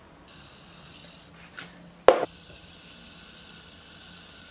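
Fidget spinner whirring on its bearing, a steady high hiss, with a sharp tap about two seconds in after which the whir carries on.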